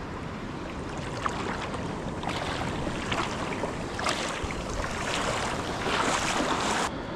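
Shallow surf water washing and splashing as a small Australian salmon is pulled thrashing to the surface, the splashing loudest around three to four seconds in and again near six seconds. The sound cuts off abruptly just before the end.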